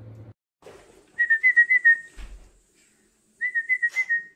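A person whistling: two quick runs of about five high, clear notes each, about a second and a half apart.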